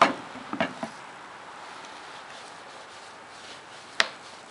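Small pocket screwdriver prying a speaker out of its cured body-filler mounting ring. A sharp click at the start, two smaller clicks and scrapes about half a second later, and another sharp click near the end.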